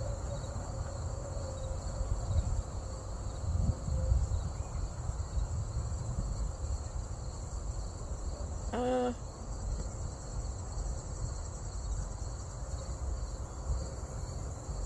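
Steady, high-pitched chorus of insects such as crickets, droning on without a break, over a low rumble. About nine seconds in, a single short pitched sound cuts across it.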